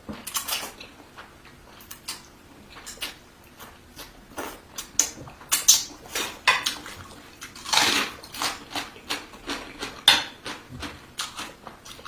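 Close-up eating sounds: a spoon and fork clinking and scraping against a bowl as rice noodles in curry sauce are rolled up and eaten, in irregular short clicks mixed with mouth sounds.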